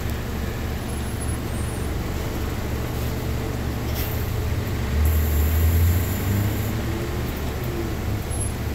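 Transit bus heard from inside the cabin: its engine runs with a steady low drone, swelling louder for a second or two about five seconds in, with a hiss over it. A single sharp click comes just before.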